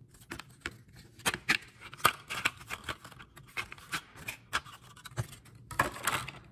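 Clear plastic blister pack being pulled and torn open, giving a series of irregular sharp crackles and snaps, with a dense flurry of crinkling near the end.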